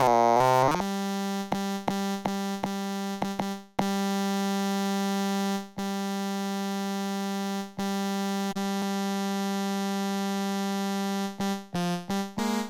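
A dog's snore sampled and played back as a pitched sampler instrument, giving one steady note with a rich, many-overtoned tone. The note wavers at the start and is struck in quick repeats, then held for a few seconds at a time, then retriggered rapidly again near the end.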